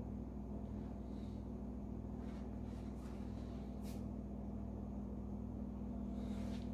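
Steady low electrical hum and faint hiss of room tone, with a faint tick about four seconds in.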